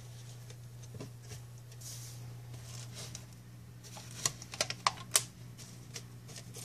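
Handling noise from rubber bands being stretched over a muslin cotton filter on a plastic bottle: faint rustling and a few ticks, then a quick cluster of small clicks and snaps about four to five seconds in. A low steady hum runs underneath.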